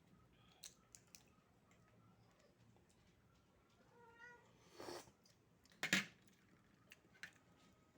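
A domestic cat gives one short meow about four seconds in. Sharp clicks and a louder clack of hard objects being handled, the loudest near six seconds.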